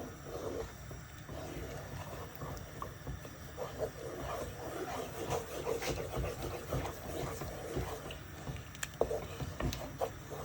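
A spoon stirring thick cooked oats in a pot to make a swallow, giving irregular squelching and scraping, with a few sharp clicks against the pot near the end.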